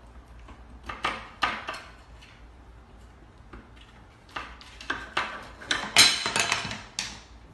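A spoon slipped through a cabinet drawer's bar handle rattling and clinking against the handle and the wooden drawer front as a cat paws at it. The clinks come in irregular bursts, loudest and quickest about six seconds in.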